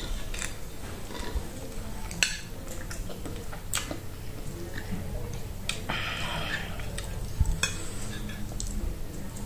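A metal fork clinking and scraping against a ceramic plate as rice is scooped up: a few sharp clicks, then a short scrape about six seconds in.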